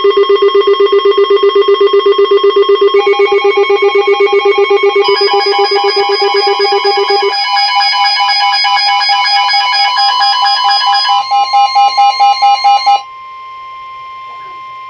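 Electronic emergency weather-alert tones: a loud, rapidly pulsing beep of several pitches at once, about five pulses a second, changing pitch pattern several times. About 13 seconds in it cuts off to a quieter steady tone.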